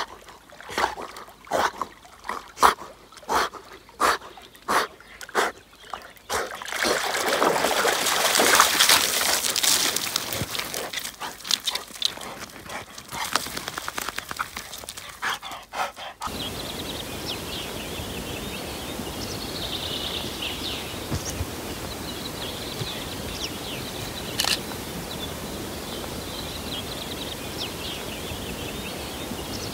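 Outdoor water sounds by a lake: regular sharp strokes about twice a second, then a few seconds of louder rushing, pouring water. After a sudden cut, a steady outdoor hiss with small birds chirping.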